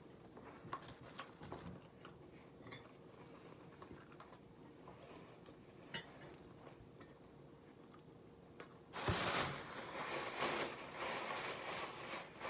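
Faint scattered clicks of a fork on dishes, then from about nine seconds in a sudden, louder rustling and crinkling of a plastic bag being handled.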